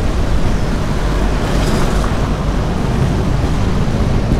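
Steady running rumble of a vintage Lisbon Tram 28 streetcar moving along the street, heard from inside the car by an open side window, with wind noise on the microphone.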